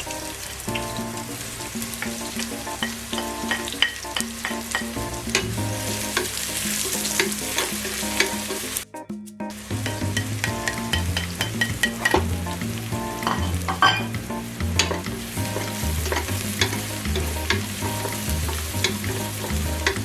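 Food sautéing in hot oil in a cooking pot, sizzling and crackling as it is stirred, with short clicks of the utensil against the pot. Background music with a stepping bass line plays under it, and both break off briefly about nine seconds in.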